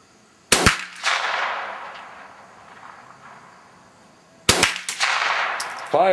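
.22 semi-automatic rifle shots: two quick shots about half a second in, then a loud wash of noise that fades away over a couple of seconds. From about four and a half seconds in, a rapid string of shots follows.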